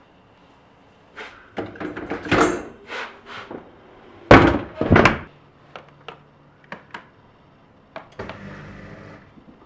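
Household objects being handled and set down: a run of knocks and clatters, with two heavy thunks about four and a half and five seconds in, then a few light taps.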